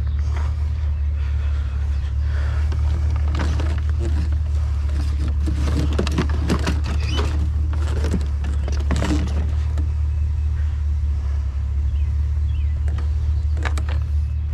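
A vehicle engine runs steadily with a low hum. Intermittent knocks and rattles, most of them between about 3 and 10 seconds in, sound over it.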